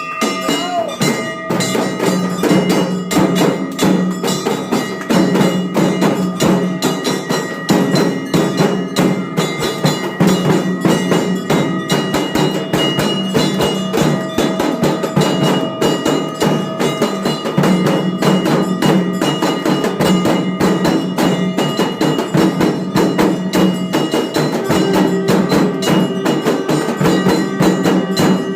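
Hindu temple aarti: brass bells struck rapidly and without pause, with their ringing tones held over the clangs and percussion beneath.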